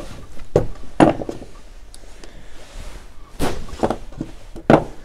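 Several sharp knocks and clunks from hands handling wiring parts and tools, about five in all, the loudest about a second in and another near the end.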